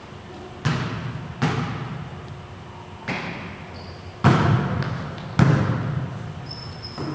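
A volleyball being struck five times in a rally, each sharp smack followed by a long echo in the gym hall. The last two hits are the loudest.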